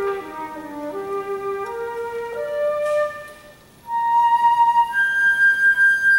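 Concert flute playing a classical melody: a stepwise run of notes in its low register, a short breath break about three seconds in, then a held note that leaps up to a higher, long sustained note.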